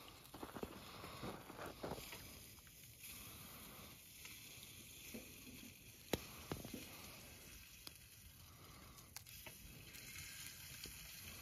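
Meat sizzling on a grill: a faint steady hiss with scattered small pops and one sharp crack about six seconds in.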